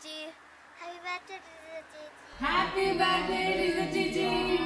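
Several voices of a family group singing together without accompaniment, starting suddenly about two seconds in after a faint single voice.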